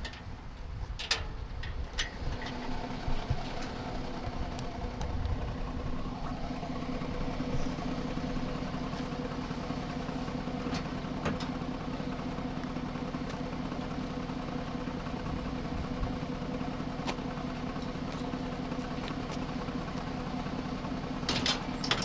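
A vehicle engine idling steadily, its hum coming in about two seconds in and holding an even pitch. A few sharp knocks sound near the start and again near the end.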